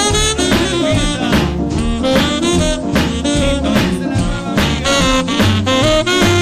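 Recorded swing music: an instrumental passage with horns, saxophone among them, over a steady beat.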